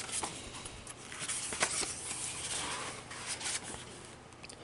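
Pages of a hardcover picture book being turned and handled: soft paper rustling with a few light clicks.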